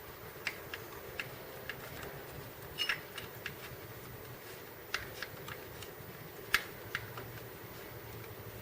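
Scattered light metal clicks and taps, irregularly spaced with a few louder ones, as a new Shimano PD-M520 pedal is threaded onto the crank arm and tightened with an Allen wrench. A faint steady hum sits underneath.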